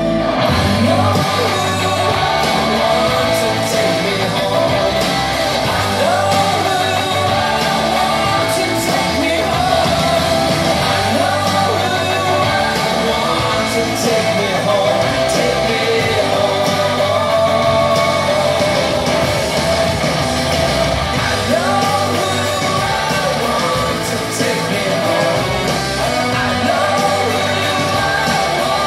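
Loud music with singing, played over a party sound system.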